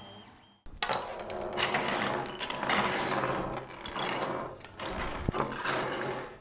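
Creality Ender 3 3D printer running, its motors and moving carriage making a busy mechanical whirring rattle that swells and dips in quick irregular stretches. It starts abruptly about two-thirds of a second in.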